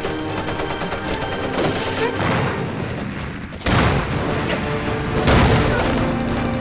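Battle sound effects: gunfire, then two loud explosion blasts about a second and a half apart in the second half, over a dramatic film score with sustained notes.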